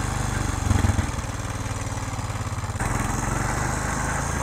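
Four-wheeler (ATV) engine running steadily under way, with a brief louder surge about a second in, picked up close by a wireless lavalier microphone worn by the rider.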